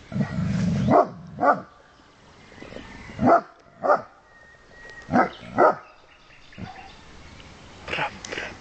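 An 11-month-old Great Dane barking in pairs: three loud double barks about two seconds apart, then a fainter double bark near the end.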